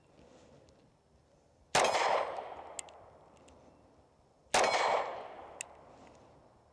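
Two pistol shots from a compact semi-automatic handgun, about three seconds apart. Each is a sharp crack with a ringing echo that fades over about a second, and there is a faint tick about a second after each shot.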